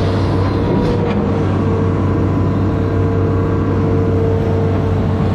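Amphibious excavator's diesel engine running steadily under load: a deep, even drone with a steady whine above it.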